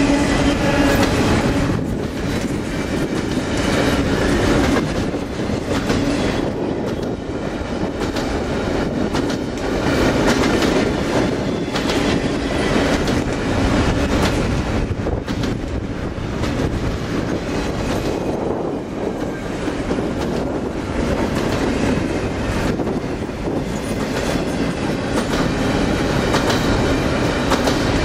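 Double-stack container well cars of a freight train rolling past, a steady rumble of steel wheels on rail with repeated clattering over the rail joints.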